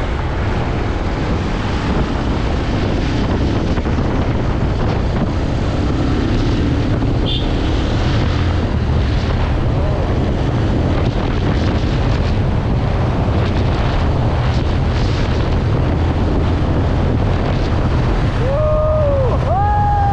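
Heavy wind buffeting on the microphone of a motorcycle riding at speed, with the bike's engine running under it.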